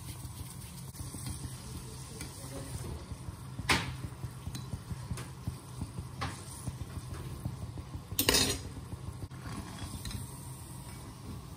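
A momo deep-frying in hot oil in an iron kadai, the oil sizzling steadily. A perforated steel skimmer stirs it and knocks against the pan, with two sharp knocks about four and eight seconds in and a lighter one between them.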